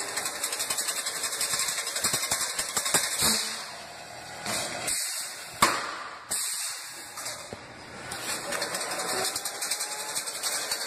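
Chain-link fence weaving machine running: a steady mechanical clatter of rapid ticks over a hiss, with a sharp click about five and a half seconds in.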